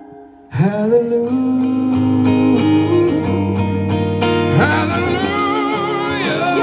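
Live band music at a concert: after a brief drop in the first half second the full band comes in suddenly, guitar prominent over bass and drums, and a man and a woman sing a duet over it.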